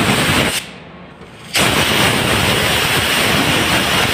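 Compressed-air blow gun blasting at a ball bearing to spin it on its shaft: a loud steady hiss of air that cuts off about half a second in and starts again about a second later.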